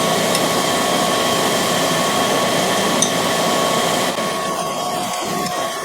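Camshaft grinding machine running with a steady whir and a few faint steady tones. There are small clinks about a third of a second in and again at about three seconds, and the whir thins a little after about four seconds.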